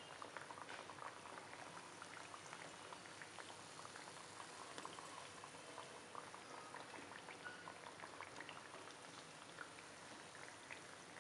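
Hot oil faintly sizzling and crackling around wheat-flour biscuits deep-frying in a pan over a low flame, a steady patter of small pops.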